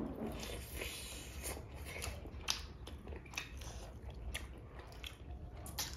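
Close-miked mouth sounds of someone eating: chewing with irregular crunches and clicks.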